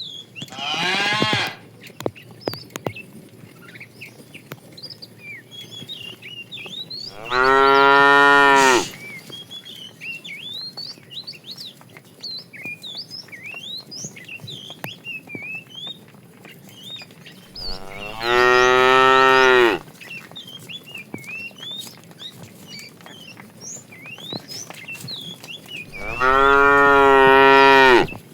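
Cows mooing: a short moo at the start, then three long, loud moos of about two seconds each, spaced roughly ten seconds apart. Small birds twitter faintly throughout.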